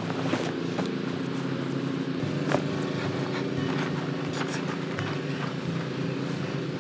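Tent fabric rustling as a large tent fly is folded and rolled on a ground sheet, with a steady low hum underneath.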